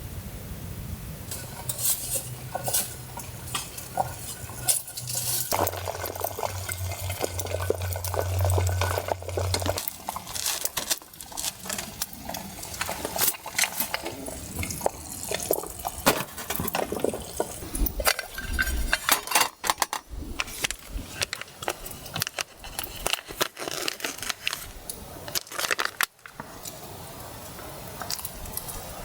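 Metal camp cookware and utensils clinking, knocking and being handled, with some liquid sounds. A low steady hum runs under the first ten seconds or so, dropping in pitch partway through.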